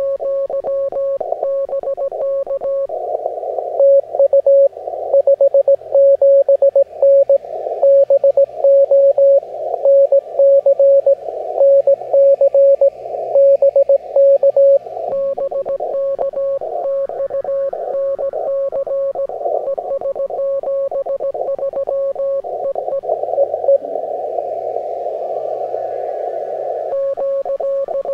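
Morse code (CW) on a ham radio receiver on the 20-metre band: a single steady tone keyed on and off in dots and dashes, over a narrow band of receiver hiss. The keying is louder for a stretch in the middle. It pauses for a few seconds near the end, leaving just the hiss.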